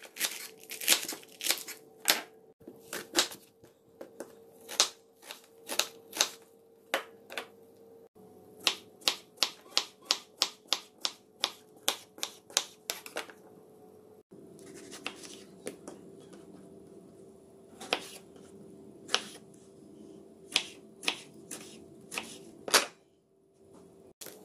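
Knife chopping romaine lettuce, then slicing cucumber and tomato on a wooden cutting board: a series of sharp taps as the blade hits the board, in runs of about two a second. A faint steady hum sits underneath.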